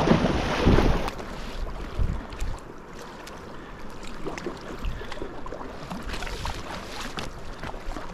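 River water rushing and splashing around an inflatable kayak running a small riffle. About a second in, the rush drops away to quieter lapping water with the small splashes and drips of paddle strokes.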